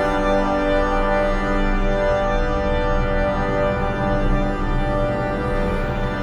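Background music: long held keyboard chords, changing to a new chord near the end.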